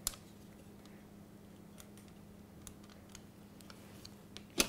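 Small clicks and taps of a plastic egg slicer being handled over a glass bowl, with a sharp knock near the end as it is set down on the cutting board, over a faint steady hum.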